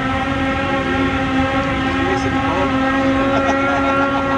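A Sea-Doo jet boat and a Ski-Doo snowmobile skimming across the water at full throttle: one steady high-revving engine note that slowly grows louder as they approach.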